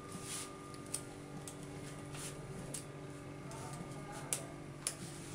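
Spoon clicking and scraping lightly against a small glass bowl as soft cooked upma is pressed and levelled in it: a handful of faint, scattered clicks.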